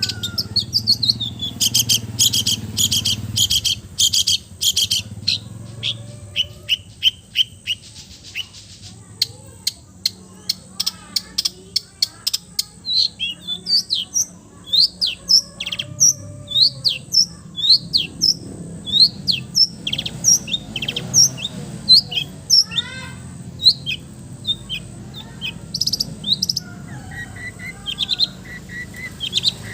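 Songbirds singing. Fast, dense chattering trills fill the first several seconds, followed by a long series of short, sharp chirps that slide in pitch, over a faint low steady hum.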